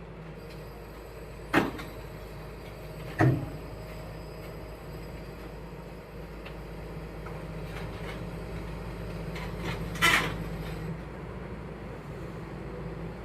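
Excavator's diesel engine running steadily, with three loud knocks: one about a second and a half in, another just after three seconds, and a last one with a short ring about ten seconds in.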